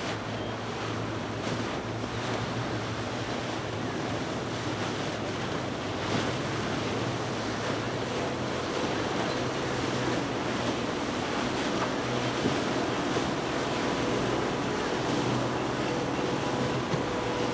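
Twin Yamaha 300 V6 outboards on a Robalo R302 center console running at cruising speed, with the rush of the hull's wash and wake and wind on the microphone. The engine note grows slightly louder from about halfway through.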